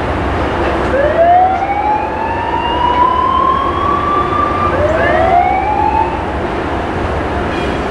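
Loram rail grinder train running with a steady rumble and hiss. Twice, a pitched whine rises over it: the first climbs for about four seconds, then a second, shorter one starts low again and climbs.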